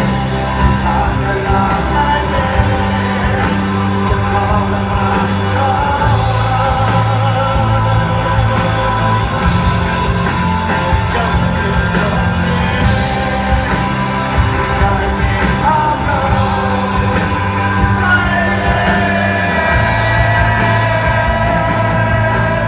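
Rock music with a singing voice, over steady bass notes that change every few seconds.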